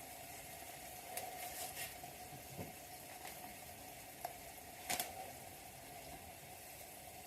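Pan of mince in tomato sauce with added water simmering faintly on the hob, with a few light clicks, the sharpest about five seconds in.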